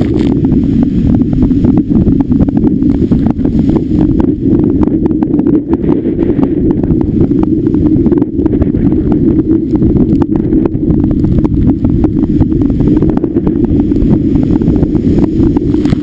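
Blizzard wind buffeting the camera microphone in a loud, continuous rumble, with storm waves breaking against a concrete breakwall.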